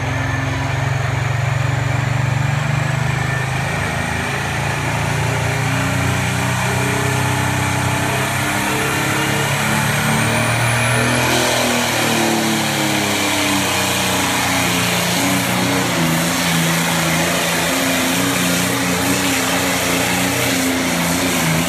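Diesel pulling tractor's engine running hard at the start of a tractor pull, with a high whine that climbs steadily for about ten seconds and then cuts off. About halfway through the sound grows fuller and rougher as the tractor pulls the sled down the track.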